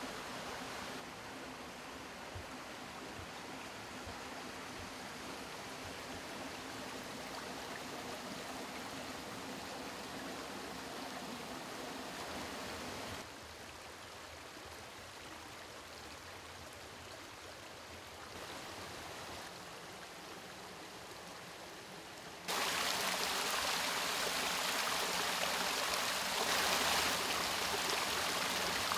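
Running water of a stream, a steady rush that steps up and down abruptly several times and is loudest over the last several seconds.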